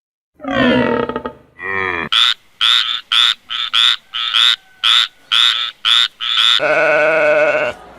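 A sequence of animal calls: two falling calls, then about a dozen short, rapid calls at roughly two or three a second, then a longer steady call near the end.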